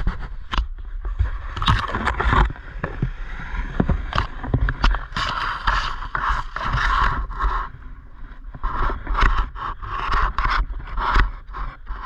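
Leaves and twigs rustling and scraping close to the microphone, with many sharp crackles and a steady low rumble on the microphone.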